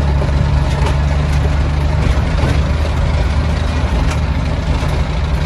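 A vehicle engine idling steadily, with a deep, even drone.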